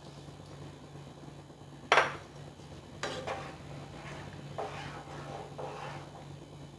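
A wooden spatula stirring cauliflower florets in water in a nonstick frying pan. A single sharp knock against the pan about two seconds in is the loudest sound, followed by several softer scrapes and taps.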